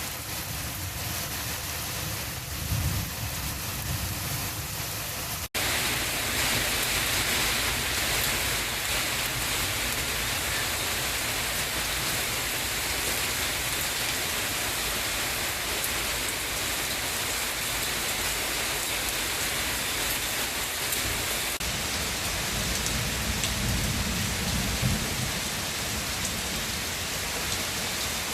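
Heavy rain pouring steadily in a storm, with low rumbles near the start and again near the end. The sound drops out briefly about five seconds in and comes back louder and hissier.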